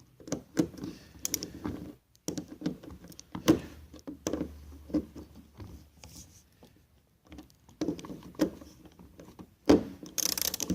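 Socket ratchet on the Miata hardtop's rear latch bolts: scattered metal clicks and knocks as the socket is fitted and the bolts snugged down, with faster ratchet clicking near the end.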